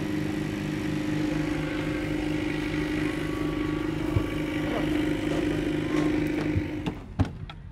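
An engine running steadily with an even pulsing throb, cutting off about seven seconds in; a few sharp knocks follow.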